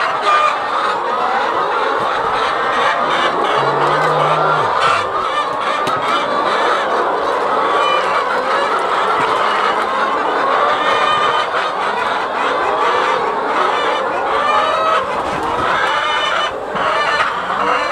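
A large flock of brown laying hens clucking and calling together, a loud, continuous jumble of overlapping calls.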